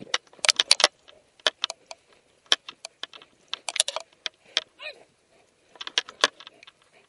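Irregular metallic jingling and clicking, in quick clusters, from the gear on a dog wearing a head-mounted camera as the dog moves about, heard right at the camera.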